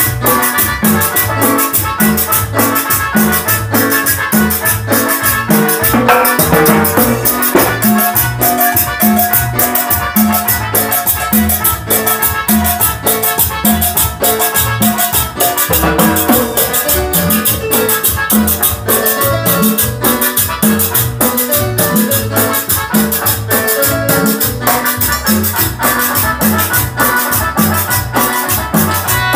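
A band playing an instrumental passage of a Latin dance song with no singing, over a steady, even beat of drums and percussion.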